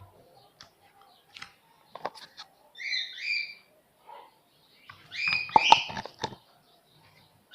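A bird chirping in short, quick calls, once about three seconds in and again about five seconds in, with scattered sharp clicks around them.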